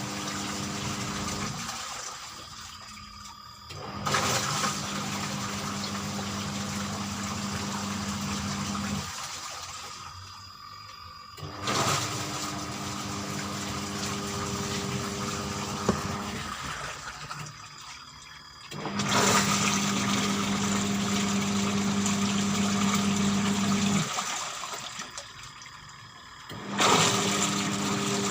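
Washing machine wash motor agitating a load in water. The motor hums and the water churns for about five seconds, stops for two to three seconds, then starts again, repeating through the wash cycle.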